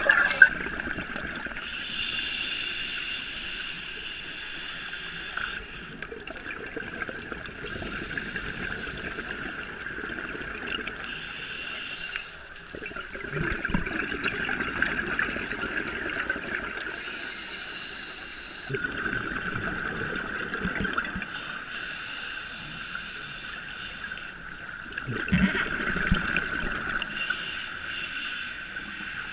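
Heard underwater: scuba regulator exhaust bubbles rushing out in bursts every few seconds as a diver breathes, over a steady high hum.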